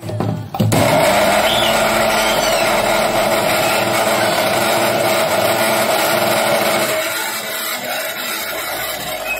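Electric mixer grinder running with its steel jar, grinding raw peanuts and dried fish into chutney. It switches on at the start, is at full speed within a second with a steady high whine, and runs a little quieter about seven seconds in.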